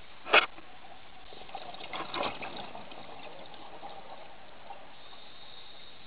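Underwater recording: a sharp knock about half a second in, then a short gurgling rush of bubbles from a scuba diver's exhaled breath around two seconds in, over a steady hiss.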